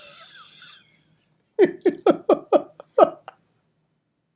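A man laughing: a breathy huff at the start, then a run of about seven quick 'ha' bursts, roughly four a second, lasting about a second and a half.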